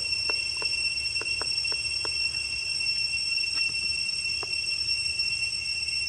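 Steady, high-pitched drone of insects holding several shrill tones, with a run of soft clicks in the first two seconds and a few scattered clicks after.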